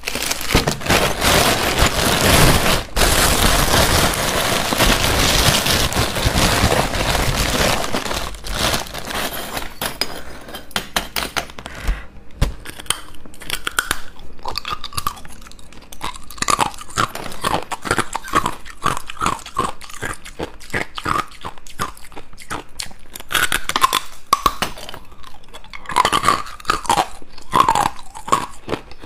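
A plastic bag of ice crinkling and rustling loudly for the first several seconds, then hard ice cubes bitten and crunched between the teeth in rapid, sharp cracks, close to the microphone.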